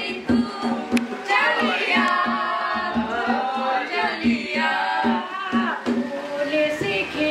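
A song playing: singing over a steady beat.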